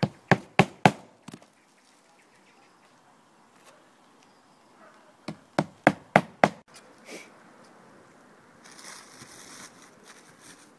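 Hammer driving roofing nails through felt shingle tiles into the roof: four quick, sharp strikes in the first second, then five more about five seconds in.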